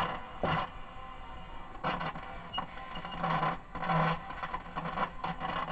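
An Ekco MPT333 transistor radio's loudspeaker gives out crackly bursts of sound that come and go at irregular intervals. This is the crackle fault the repairer places in the audio stage, since it does not vary with the volume control.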